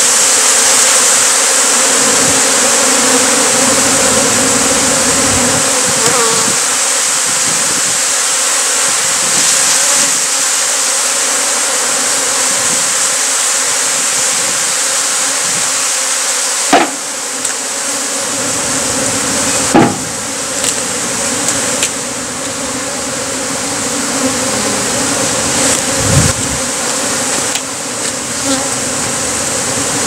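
Thousands of honey bees flying around an opened colony, a dense continuous buzzing. Three sharp knocks break through it partway along.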